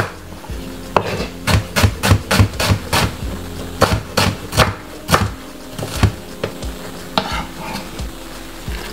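Knife chopping on a cutting board: quick, irregular strikes, several a second, in bursts with short pauses.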